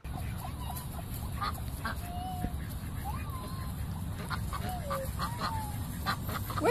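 Waterfowl giving a few short, scattered calls over a steady low rumble.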